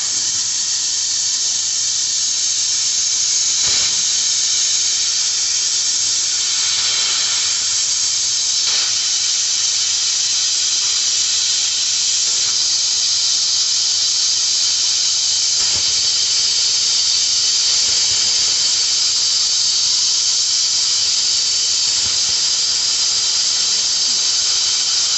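CNC laser cutting machine running: a steady, loud hiss.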